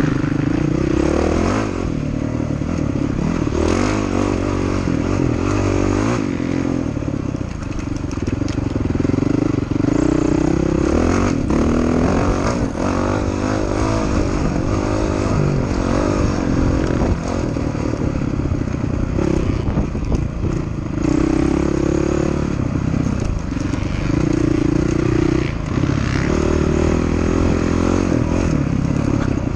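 Off-road dirt bike engine under way, revving up and down as the rider works the throttle through the gears.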